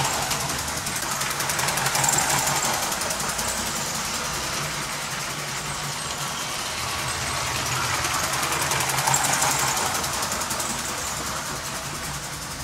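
Battery-powered brick-built model trains running on plastic toy track: a steady electric motor whir with wheels clattering over the track joints. It swells as a train passes close about two seconds in and again around nine seconds.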